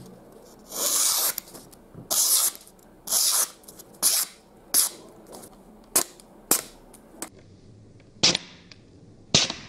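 Y-Start Rat 1 folding knife's factory edge slicing through a sheet of paper in a series of about ten short papery cuts. The first few strokes are longer; the later ones are short and sharp. It is a sharpness test of an edge the owner says shaves.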